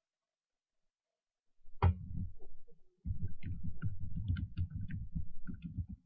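Computer keyboard being typed on in a quick run of keystrokes, heard as soft low thuds with light clicks. It starts after a silent second and a half with one sharper key strike, and becomes rapid, continuous typing from about three seconds in.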